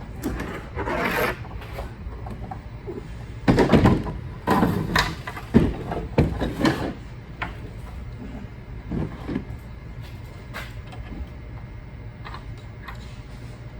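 Rubbing and scraping as a motor cable is pulled through the cable hole in a sweeper frame and the frame is handled: a run of irregular rustles and scrapes, busiest in the middle, then quieter.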